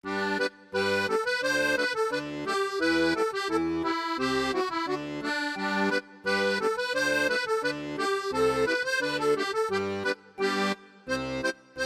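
Instrumental background music: a melody of short, stepping notes, with a few brief pauses.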